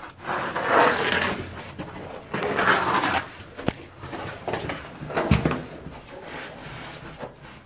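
Scraping and rustling of clothing, hands and the phone rubbing against the sandstone walls of a tight slot canyon. It comes in about three separate bursts, with a few sharp clicks and a knock of the camera being handled.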